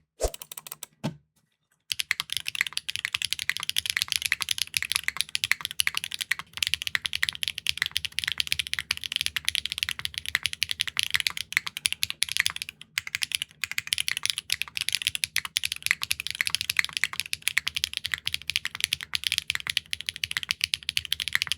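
Fast, continuous typing on a Neo65 Core Plus mechanical keyboard fitted with clacky linear switches: dense high-pitched keystroke clacks, with a brief silent break about a second in.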